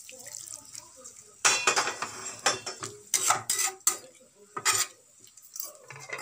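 Metal spatula scraping and clinking against the pan while stirring a watery potato curry. It is a run of irregular, sharp strokes that starts about a second and a half in.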